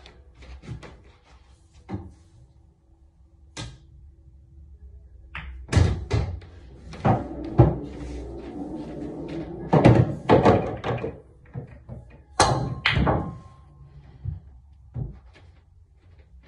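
Pool balls on a pub-style pool table: cue strikes and balls knocking together and against the cushions, with a dense run of loud knocks and thuds in the middle and lighter clicks either side.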